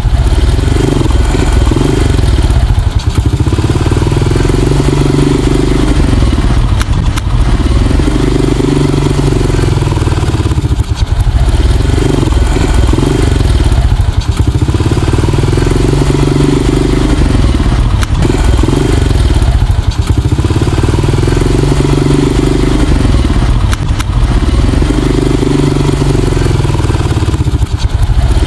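Honda Astrea underbone motorcycle engine being revved over and over while it warms up, each rev rising and falling in pitch, about one every two seconds.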